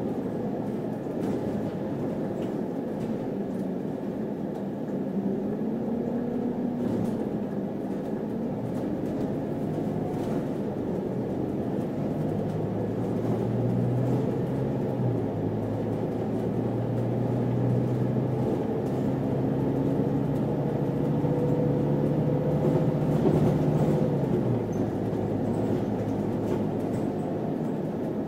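City bus running, heard from inside the cabin: a steady low engine and drivetrain drone over road noise. Its pitch rises and shifts as the bus pulls along, then steps down about three-quarters of the way in.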